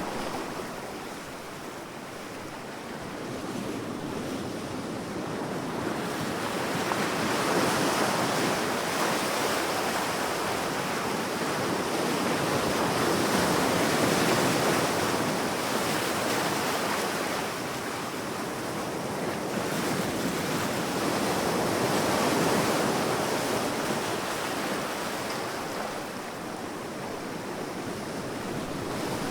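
Sea waves breaking and washing ashore, the surf swelling and falling back every several seconds.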